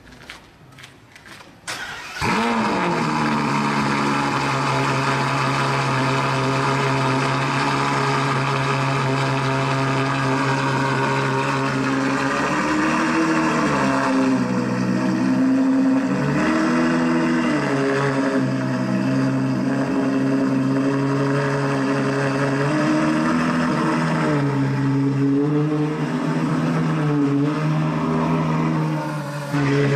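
Novitec N-Largo Ferrari F12's 6.3-litre V12 starting about two seconds in. It flares up and settles to a steady idle, then from about twelve seconds on is revved in a series of short throttle blips.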